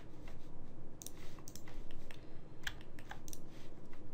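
Computer keyboard keystrokes and mouse clicks: a scatter of separate sharp taps in small clusters, about a second in and again near three seconds.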